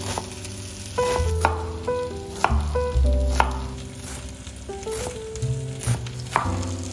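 Chef's knife dicing a raw onion on a wooden cutting board: sharp blade strikes on the board and crisp crunches, roughly one a second at an uneven pace, over soft background music with a bass line.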